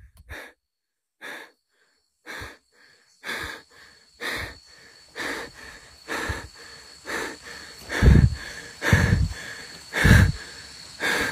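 A man panting heavily, one harsh breath about every second, the breaths louder over the last few seconds.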